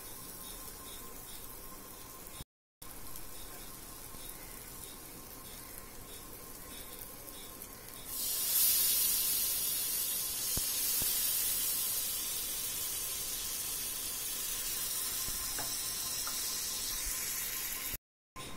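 Dry fish frying in oil in a pan, a steady sizzle. About eight seconds in, water is poured into the hot pan and the sizzle jumps to a loud hiss, then settles into a steady, stronger sizzle as the liquid boils around the fish.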